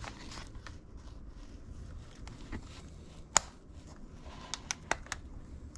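Handling noise from a Sony camcorder being turned over and opened to find its memory card slot: light rustling and scattered sharp plastic clicks, one louder click in the middle and a quick run of four small clicks near the end.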